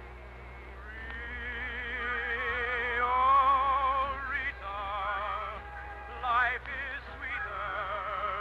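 Operetta-style singing with heavy vibrato over an orchestra, a romantic stage-musical song. Long held notes, one climbing to a loud high note about three seconds in. It comes from an old radio transcription, with a narrow, muffled top end and a steady low hum underneath.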